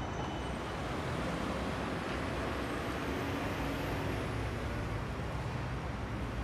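Steady outdoor city street background: a low, even wash of traffic noise.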